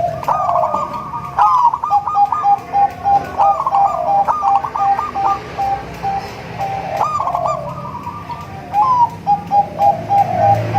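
Zebra dove (perkutut) cooing: several song phrases, each a rising coo followed by a fast run of short, clipped notes, repeated throughout.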